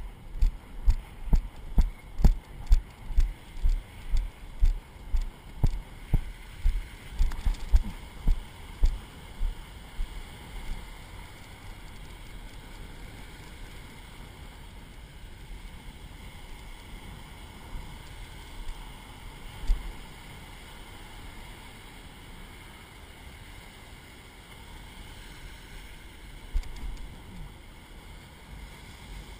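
Footsteps thudding about twice a second as someone walks across wet beach sand into the shallows, fading out about ten seconds in. After that, steady surf and wind noise with a couple of single bumps.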